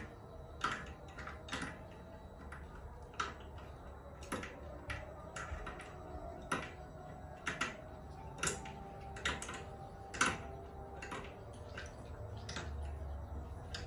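Irregular sharp metallic clicks and taps, roughly one or two a second, from hand-fitting an industrial sewing-machine motor to the underside of a sewing table.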